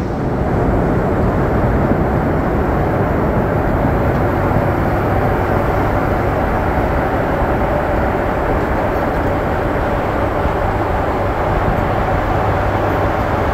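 Steady in-flight roar inside the main-deck cargo hold of a Boeing 747-400 freighter: engine and airflow noise coming through the fuselage, with a faint steady hum in it.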